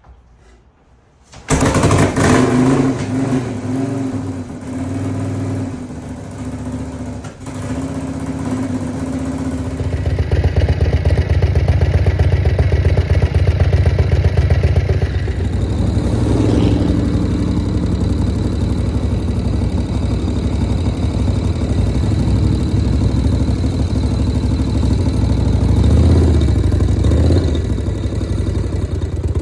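1983 Harley-Davidson Shovelhead chopper's V-twin engine starting up about a second and a half in, then running and revving unevenly. From about ten seconds in it runs louder and steadier.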